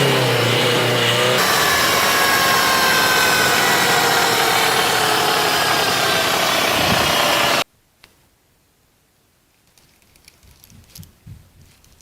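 Car engine and manual gearbox running, with whining tones that drift slowly down in pitch: the kind of noise a damaged bearing or gear in the gearbox can make. It cuts off abruptly about seven and a half seconds in, leaving only a few faint ticks.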